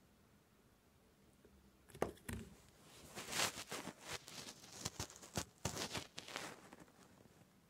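Handling noise from a mobile phone held in the hand: irregular clicks, taps and rustles of fingers on its casing, starting about two seconds in and stopping about six and a half seconds in.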